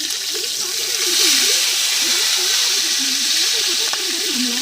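Fish frying in hot oil in a non-stick pan: a steady sizzling hiss that grows louder about a second in.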